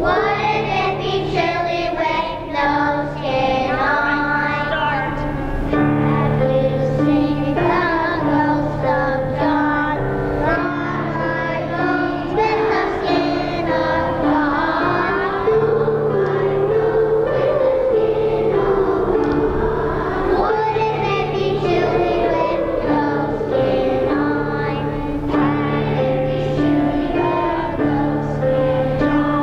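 Children's choir singing a song, accompanied on an upright piano.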